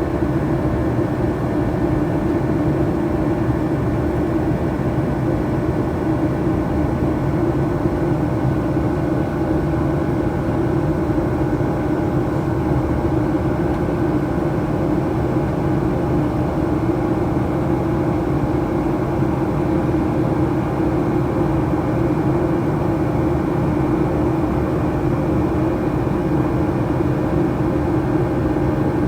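Cabin noise inside a Boeing 737-800 heard from the front row: the steady drone of its CFM56 engines and rushing air, with a strong low hum and faint steady tones above it, holding even throughout.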